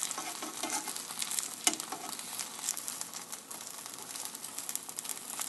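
A rice-flour sheet sizzling and crackling in a hot, lightly oiled pan as the filled rice roll cooks, with a sharp click about a second and a half in.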